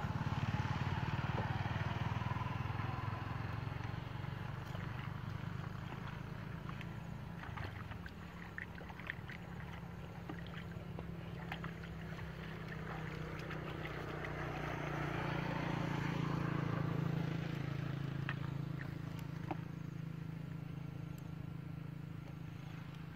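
A small engine droning steadily, louder near the start and again about two-thirds of the way through, with light splashes and water sounds from wading in shallow water.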